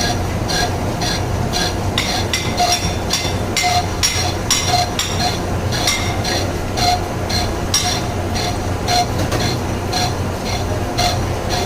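Regular metallic clinks, about two strikes a second, each ringing briefly, over a steady low machine hum.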